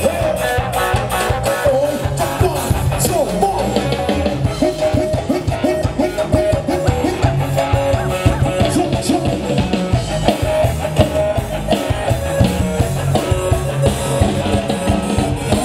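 Live band playing upbeat dance music: a drum kit keeping a steady beat, electric guitars and a singer.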